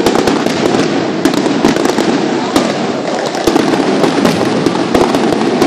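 Aerial fireworks display: a rapid, irregular series of bangs and crackles from bursting shells, many a second, over a continuous din.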